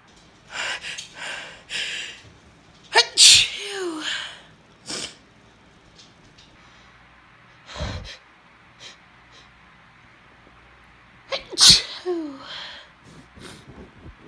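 A woman sneezing. A few short, hitching breaths in lead to a loud sneeze about three seconds in, and a second loud sneeze comes near the end; each trails off in a brief falling voice.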